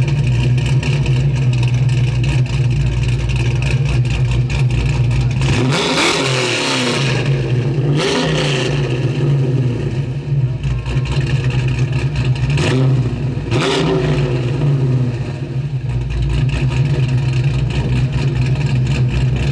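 Car engine idling steadily, blipped into four short revs: two about six and eight seconds in, two more close together around thirteen seconds in.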